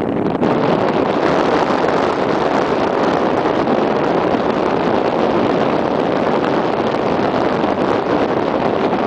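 Loud, steady rush of airflow over the microphone of a camera flying on a paraglider.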